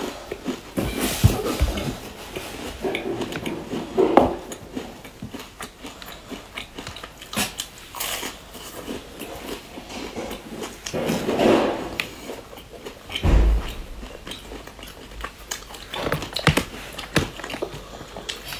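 Close-up biting and chewing of crisp round biscuit sandwiches with a crunchy coated filling: irregular crunches and crackles, with softer chewing between bites. A dull thump comes about two-thirds of the way through.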